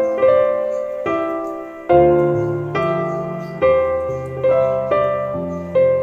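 Piano music: a slow melody with a note or chord struck about once a second, each ringing and fading before the next.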